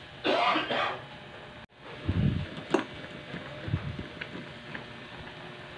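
A short bit of voice in the first second. Then a fork stirs and breaks up instant pancit canton noodles in a saucepan of boiling water, giving soft low knocks and a few small clinks against the pan.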